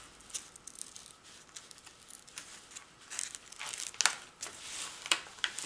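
Rustling and crackling of the printed plastic-coated cover sheet being slowly peeled back off a diamond painting canvas's adhesive surface. Faint at first, louder and denser from about three seconds in.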